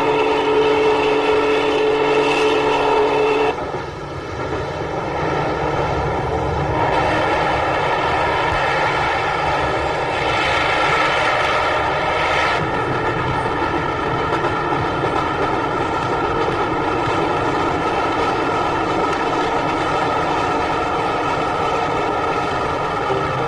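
Steady engine drone with a rushing hiss; its sound shifts about three and a half seconds in and then runs on evenly. Music begins right at the end.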